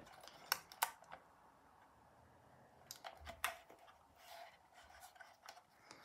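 Handling noise from a small homemade box fan's case being turned over in the hands: a few faint sharp clicks and knocks, with a soft thump about three seconds in.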